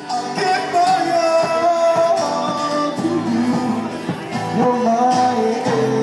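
A street busker singing and strumming an acoustic guitar.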